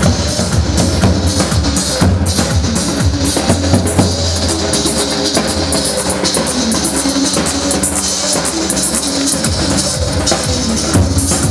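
Upbeat Kurdish wedding dance music from a live band, with a steady drum-kit beat driving the line dance.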